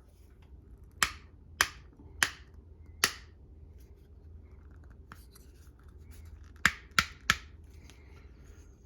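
Sharp clicks from a universal toilet tank lever being rotated with force into position: four clicks about half a second apart, a pause, then three more in quick succession.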